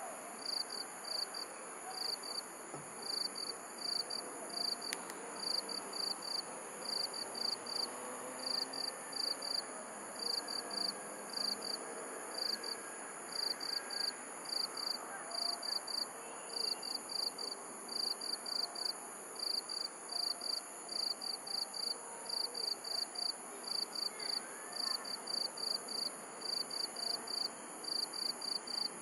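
Crickets chirping at night: a steady run of short, high chirps, about two a second and often in pairs, over a continuous higher-pitched insect trill.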